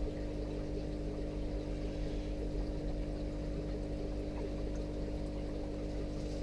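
Steady hum of aquarium equipment: a pump motor droning on a few fixed low tones, with water moving in the tank.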